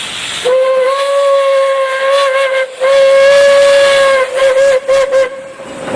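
Train whistle sounding two long, steady blasts, the second breaking into short toots near its end, after a brief hiss at the start.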